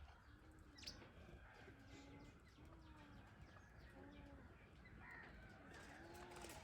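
Faint bird calls: a low cooing note repeated about once a second, with a short high chirp about a second in and a few faint high ticks.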